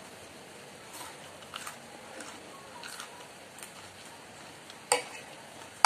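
Mouth sounds of someone chewing food, with small clicks of a metal spoon and fork against a ceramic plate; a sharper, louder clink about five seconds in.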